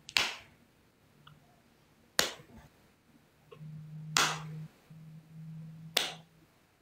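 Four sharp clicks or snaps about two seconds apart, with a faint low hum starting about halfway through and stopping just before the last click.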